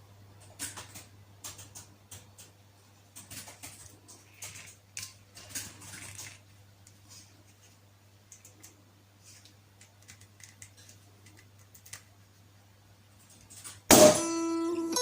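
Light, scattered clicks and scrapes of kitchen handling over a steady low electrical hum, thinning out after about seven seconds. Guitar music comes in loudly near the end.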